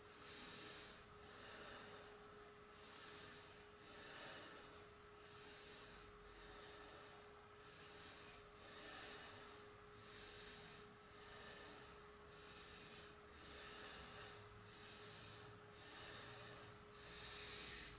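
Near silence: faint room tone with a steady low hum and soft hiss swells about once a second.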